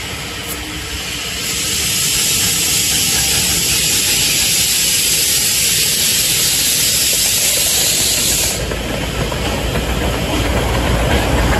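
Miniature ride-on steam locomotive letting off steam in a loud hiss as it approaches. The hiss starts about a second and a half in and cuts off suddenly about three seconds before the end. It leaves the low rumble of the train running along the track, growing louder as it comes closer.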